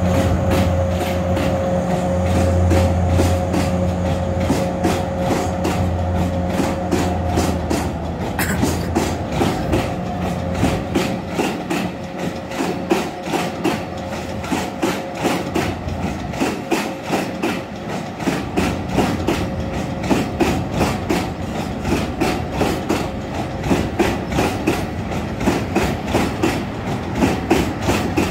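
A diesel freight locomotive's engine runs with a steady low drone that fades after about eight seconds. Freight wagons rolling underneath then give a fast, rhythmic clickety-clack of wheels over rail joints for the rest of the time.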